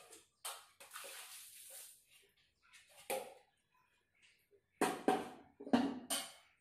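Water thrown from a mug and poured from a steel bucket onto a wet tiled floor, coming as a string of short splashes with one longer pour about a second in. A louder cluster of splashes and metal bucket knocks comes near the end.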